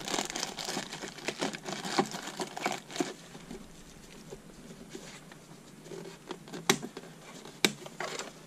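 Thin clear plastic film crinkling and crackling as it is peeled and handled off a pair of FPV goggles, dense for the first few seconds. It then gives way to quieter handling of the plastic goggle housing, with two sharp clicks in the second half.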